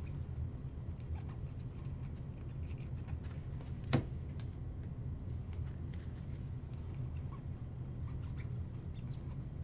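Trading cards being flipped and slid through by hand: light scratchy clicks and rustles, with one sharper click about four seconds in, over a steady low hum.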